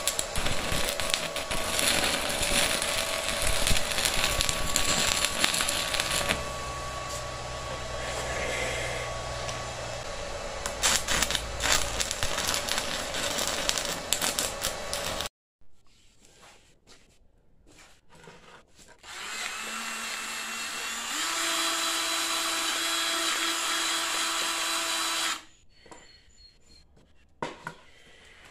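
Stick-welding arc crackling steadily as the electrode burns onto steel, for about fifteen seconds until it cuts off suddenly. A few seconds later a small motor runs steadily, stepping up in pitch partway, and stops near the end.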